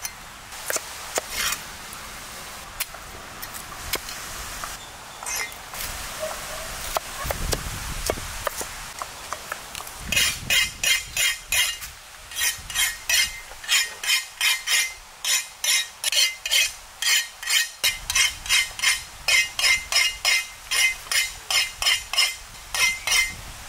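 Steel cleaver chopping cauliflower on a wooden log chopping block: scattered knocks at first, then from about ten seconds in a steady chopping rhythm of about two strokes a second.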